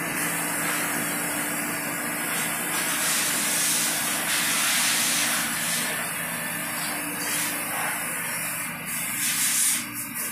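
Grinder coolant and chiller unit running: a steady motor hum under a loud hiss that swells about three seconds in and again near the end.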